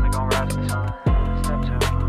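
Hip-hop backing music with a steady beat of deep kick drums, hi-hats and a bass line, briefly dropping out about halfway through.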